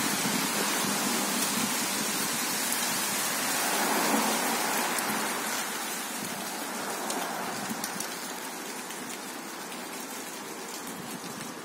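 Light rain falling on a street: a steady, even hiss with faint patter, easing a little in the second half.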